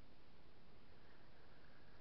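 Faint steady outdoor background hiss, with a faint, even, high insect trill, like a cricket, coming in about a second in.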